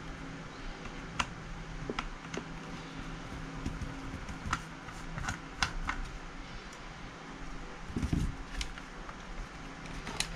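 Scattered small clicks and taps of a screwdriver and plastic parts while the grip panel screws are undone on a plastic KJ M9 airsoft pistol's frame, with a duller knock about eight seconds in, over a faint steady hum.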